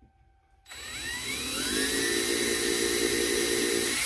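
DeWalt DCD771 cordless drill boring a pilot hole into oak. The motor starts under a second in, its whine rising in pitch as it comes up to speed, then runs steadily.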